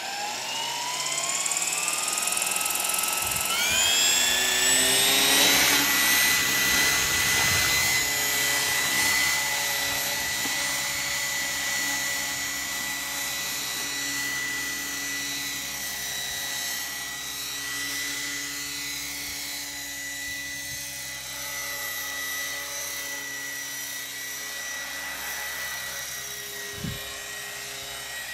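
Gaui Hurricane 550 radio-controlled helicopter spooling up, its whine rising in pitch over the first five seconds or so, then running at a steady high whine with a constant tone as it lifts off, hovers and flies.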